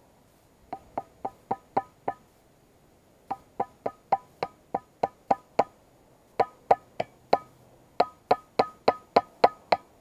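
Knife blade chopping into a stick of wood to make kindling: sharp, hollow knocks about three to four a second, in four runs with short pauses between.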